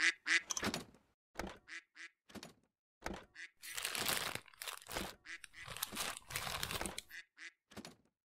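Stop-motion sound effects: a few short rubber-duck quacks in the first second, then a string of light taps and clicks. A plastic bread bag crinkles for about three seconds as it is handled, and two more taps come near the end.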